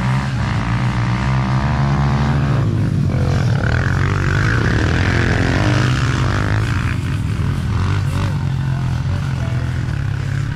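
Several youth dirt bikes running hard. Bikes accelerate past at close range around the middle, their engine pitch rising and falling as they go by, over the steady drone of more bikes.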